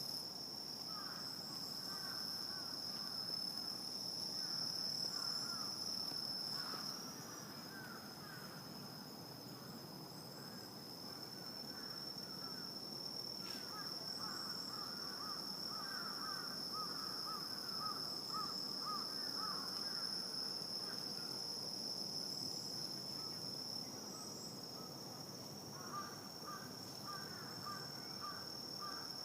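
Night insects, crickets, trilling in a continuous high steady tone, with bursts of rapid, lower chattering calls from another night animal coming and going, strongest a little past halfway and again near the end.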